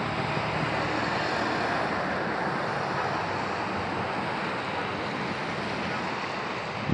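Steady, even rushing noise of a rain-soaked street, with a commuter train passing on the elevated line.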